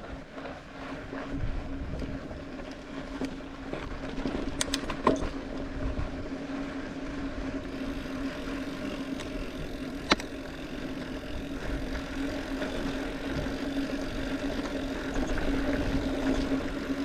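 Mountain bike ridden fast down a berm-lined dirt trail: rumbling tyre and trail noise, a steady buzzing hum, and a few sharp clicks or knocks from the bike, one standing out about ten seconds in.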